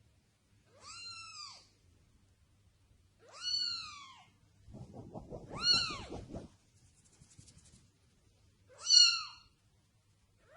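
A cat meowing four times, a few seconds apart, each meow rising then falling in pitch; the last meow is the loudest. A low rumbling noise runs under the third meow.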